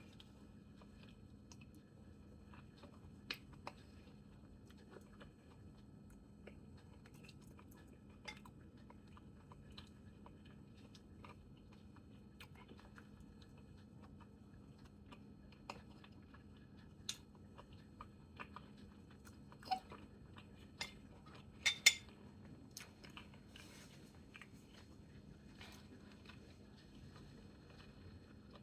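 A person chewing yellow yam and corned beef close to the microphone, with scattered sharp clicks of cutlery against a plate; the loudest clicks come a little past two-thirds of the way through. A faint steady hum runs underneath.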